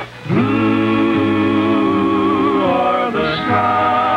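Cowboy string band playing, with fiddle and upright bass, and men's voices singing long, wavering held notes. The music dips briefly right at the start, then carries on.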